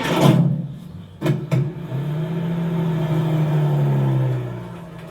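A sharp knock, two more knocks a second later, then a steady mechanical hum that holds for a couple of seconds and winds down near the end.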